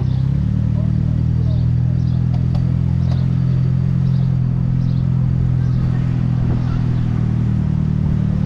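Saab 9-3 convertible's engine running steadily as the car crawls along at low speed, a low hum that steps up slightly about half a second in and eases back near the end.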